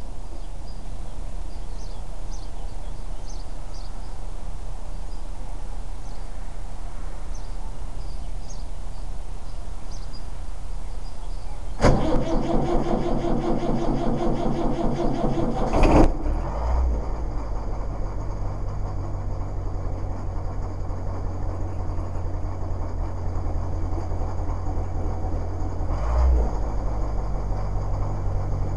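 Birds chirping, then about twelve seconds in a vehicle's starter cranks the engine for about four seconds. The engine catches and settles into a steady idle.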